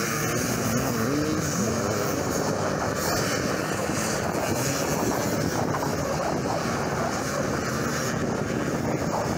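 Several off-road motorcycle engines racing on a sand track, their pitch rising and falling as the riders rev through the corners.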